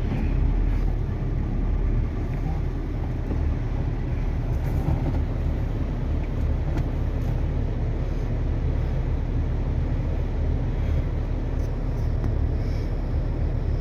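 Car engine and road noise heard from inside the cabin as the car drives: a steady low rumble.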